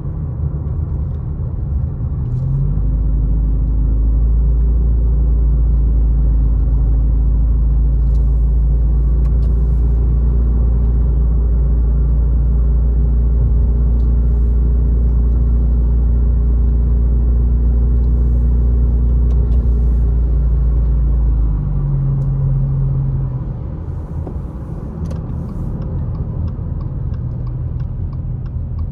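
Car engine and road noise heard from inside the cabin while driving on a wet road. It is a steady low drone with a hum that rises about two and a half seconds in, holds, and falls back about twenty-one seconds in.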